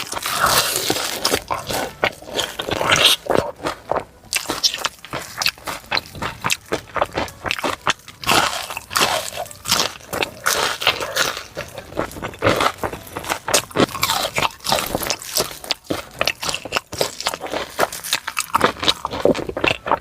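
A person biting and chewing crispy fried food, a dense run of irregular crunches.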